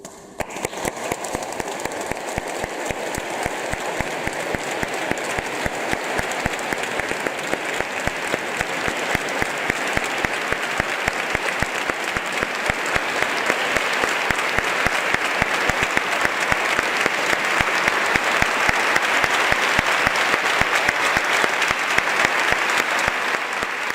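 Concert audience applauding after a brass band's march ends: dense, continuous clapping that begins right as the music stops and swells slightly.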